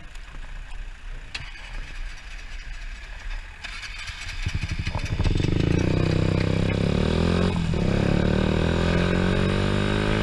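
Motorcycle engine ticking over low, then pulling away about four seconds in and getting much louder, its pitch climbing under acceleration. It dips briefly at a gear change near eight seconds in, then climbs again.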